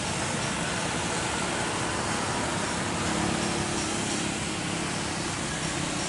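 Jet engines of an AirAsia Airbus A320 running as the airliner rolls along the runway: a steady, even roar of engine noise.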